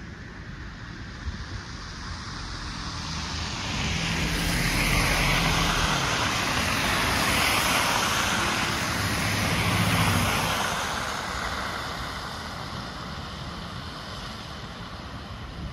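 A vehicle passing by: engine and tyre noise swell over several seconds, peak near the middle, then fade away.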